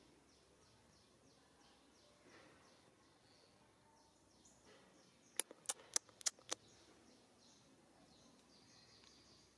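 Faint outdoor ambience with a steady run of short, high chirps repeating several times a second. A little past halfway, about six sharp clicks come in quick succession within about a second.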